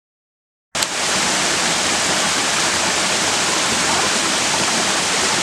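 Waterfall rushing: a steady, even hiss of falling water that cuts in suddenly out of silence about a second in.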